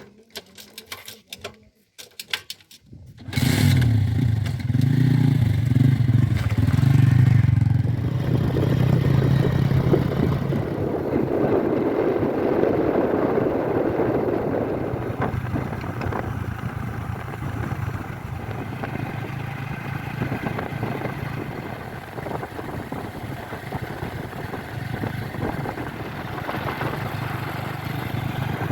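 Diesel engine of heavy earthmoving machinery running steadily under load. It comes in suddenly about three seconds in, after a few light clicks.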